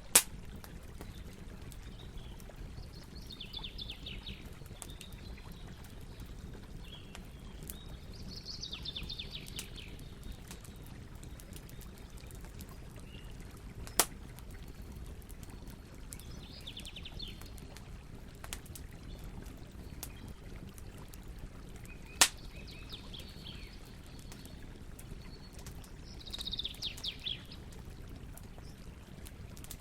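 Campfire burning with a low steady rumble and scattered crackles, three sharp loud pops standing out: one right at the start, one about 14 seconds in, one about 22 seconds in. Birds call in short rapid trills every few seconds over the fire.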